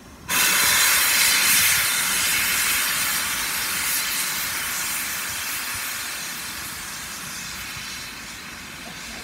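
Royal Scot Class 4-6-0 steam locomotive 46115 'Scots Guardsman' letting off steam low down near the track: a loud hiss that starts suddenly and fades slowly without any beat.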